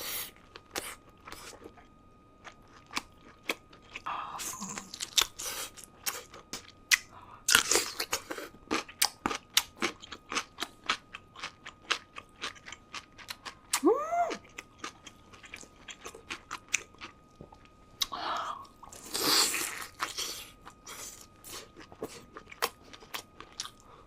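Close-miked crunching and chewing of shell-on shrimp, a run of crisp crunches with denser bursts of biting about 5 s, 8 s and 19 s in.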